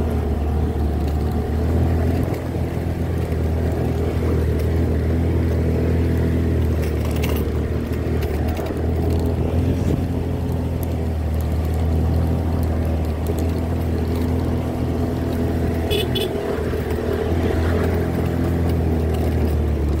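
Motorbike engine running steadily while riding, a continuous low hum with an even, unbroken note.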